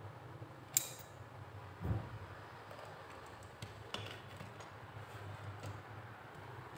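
A few faint clicks and a soft knock of metal hand tools being handled, over a low steady hum.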